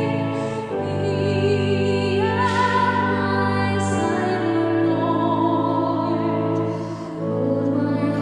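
Slow sacred music: a singer with a strong vibrato over held instrumental chords that change every few seconds.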